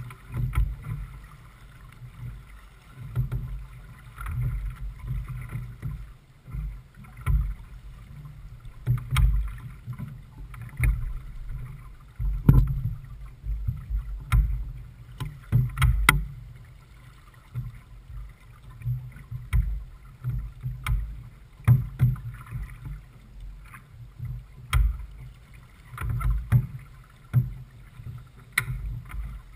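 Wind buffeting the microphone aboard a J/24 keelboat under sail, an uneven gusty rumble, with water noise from the hull moving through the chop and scattered short knocks.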